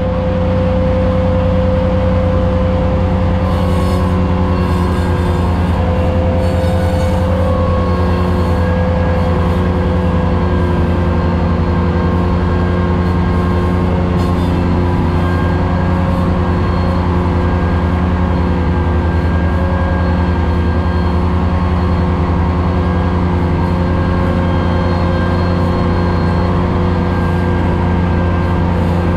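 Ventrac 4500Z compact tractor running steadily under load while mowing tall grass with a 72-inch finish mower deck, heard from inside the enclosed cab. It is a constant low engine drone with a few steady higher tones over it, and some brief higher hissing a few seconds in.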